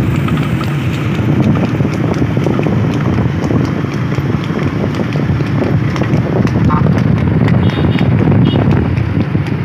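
Heavy wind rumble buffeting the microphone at speed, over the hoofbeats of a running horse.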